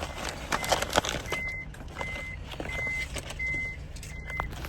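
Electronic warning beeper sounding a run of identical short high beeps, about one every 0.7 seconds, starting about a second in, over a steady low vehicle rumble.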